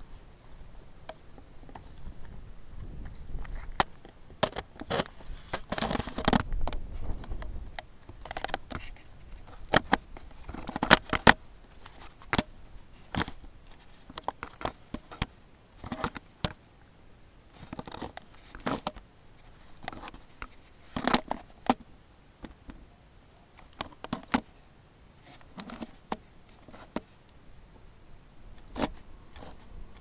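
Handling noise from a handheld camera and movement through dry grass and volcanic rock: irregular clicks, crackles and scrapes, with a low rumble about five to eight seconds in. A faint steady high whine sits underneath.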